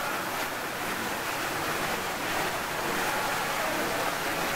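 Indoor garden waterfall splashing down with a steady rush of falling water.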